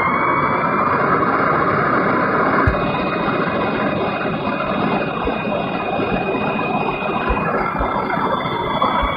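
A siren holding a steady high pitch over loud rushing noise.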